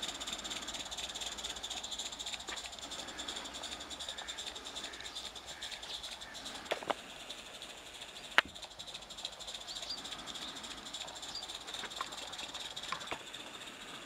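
IP Engineering 'Jane' live-steam garden-railway locomotive with oscillating cylinders running, giving a steady steam hiss. A few sharp clicks come from about seven seconds in.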